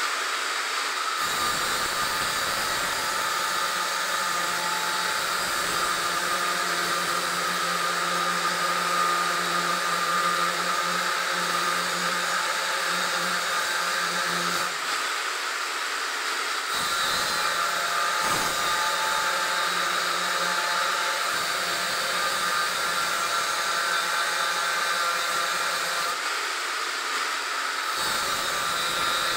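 Hand-held angle grinder running against steel, a steady high whine over constant grinding noise.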